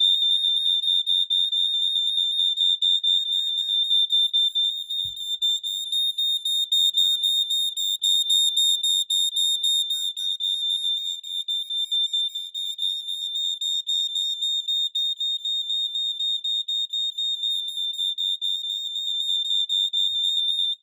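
1990 Firex Model G6 smoke alarms sounding on test: one continuous, loud, high-pitched horn tone with a fast flutter in it, which then cuts off suddenly.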